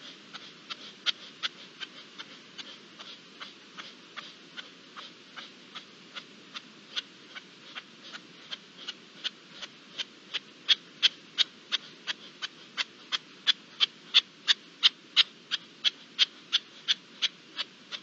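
A bird calling in a long, even series of short, sharp notes, about three a second, growing louder about halfway through.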